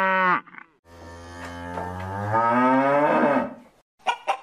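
A cow mooing: one long moo of about two and a half seconds, starting about a second in, rising in pitch and growing louder before it fades. Just before the end, a hen starts clucking in quick, even notes.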